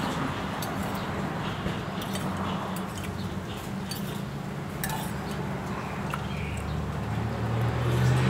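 Cutlery clicking and clinking against a plate during eating, over a steady low traffic hum that grows louder near the end as a vehicle passes.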